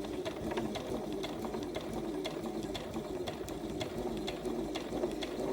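Electric sewing machine running steadily, stitching a seam through folded fabric, with a fast, even clicking of the needle mechanism.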